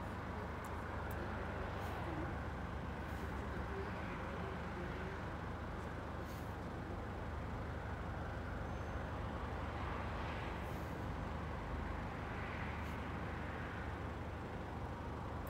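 Steady outdoor road-traffic rumble and hiss, swelling briefly about ten seconds in and again a little later as vehicles pass.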